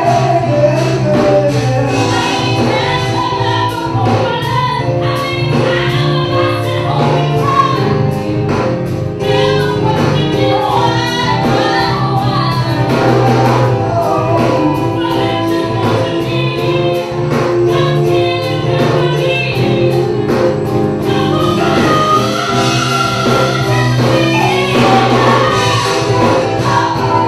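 Live band playing a song: a woman singing lead over keyboards, electric guitar and drums, with a steady beat.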